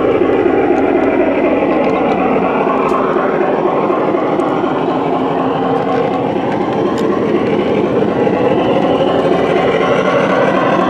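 Large-scale garden model train rolling along the track, heard from a car in the train: a steady rumble of wheels on rail with a couple of faint clicks.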